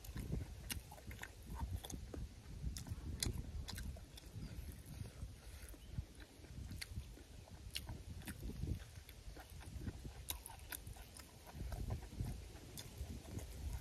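A person chewing boiled beef tripe close to the microphone, with wet mouth smacks and scattered sharp clicks.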